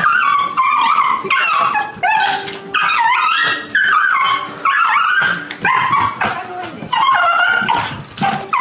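A dog squeaking and whining in a long run of high-pitched cries and yips, each gliding up and down in pitch, one after another with hardly a break.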